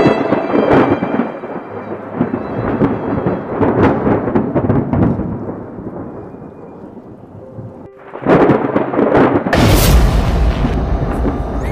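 Thunderstorm sound effect: rain with repeated cracks and rumbles of thunder. It dies down about six to eight seconds in, then a loud thunderclap comes near the end.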